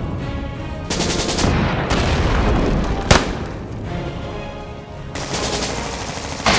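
Two bursts of rapid-fire shots, the first about a second in and the second near the end, with a single sharp crack in between. Background music plays under them.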